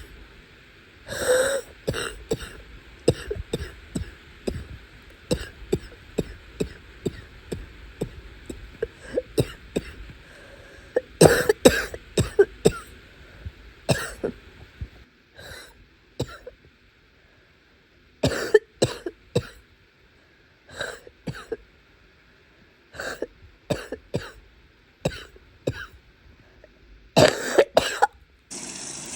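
A person coughing in repeated fits of short, harsh barking coughs with some throat clearing, after long holding back the urge to cough. There is a lull about halfway through, then more bouts.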